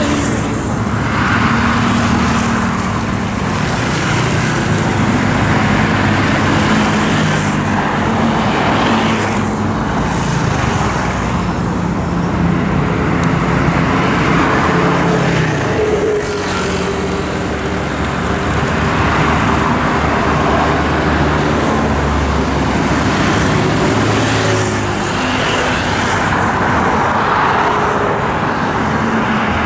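Busy highway traffic with small motorcycles, scooters and cars passing close by. The engine hum and tyre hiss swell and fade as each vehicle goes past.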